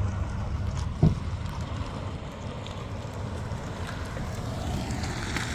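Wind buffeting the microphone as a steady low rumble, with one sharp knock about a second in; no siren tone is heard.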